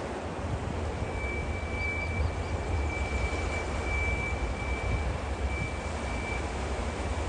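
Container freight train hauled by two TasRail TR class diesel locomotives, passing with a steady low rumble. From about a second in, a thin, high, steady squeal from the wagons' wheel flanges on the curve comes and goes.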